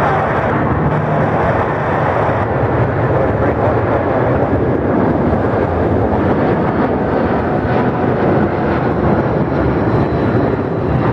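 Jet airliner engines running, heard as a steady, loud rushing noise.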